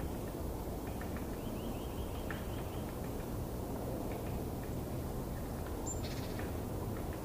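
Steady low outdoor background rumble with faint bird calls: a quick string of chirps about two seconds in and a short high call near the end.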